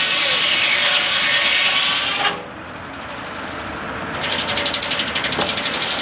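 Circular saw blade of a Frick No. 00 sawmill ripping through a log with a loud, steady whine that cuts off sharply about two seconds in as the blade clears the cut. The mill then runs more quietly, and from about four seconds a fast, rhythmic hissing rattle sets in.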